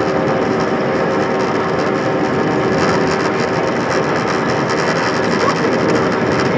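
Steady drone of an Airbus A320-232's IAE V2500 jet engines heard inside the cabin while the aircraft rolls on the ground, a continuous rushing noise with a low hum of steady tones.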